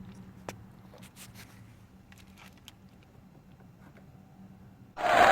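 Light scattered metallic clicks and taps of a thin blade tool being wiggled inside a steering column against the ignition lock parts, over a faint low hum. Right at the end a much louder noisy sound cuts in abruptly.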